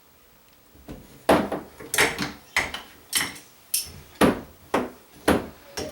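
A stuck old showerhead being worked loose: sharp metal knocks and clanks from about a second in, roughly two a second.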